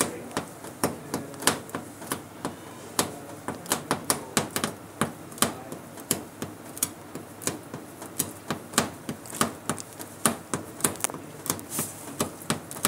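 Fingers dabbing a lump of black self-adhesive tape residue against a thin metal sheet to lift off the leftover specks: irregular sharp clicks and taps, several a second.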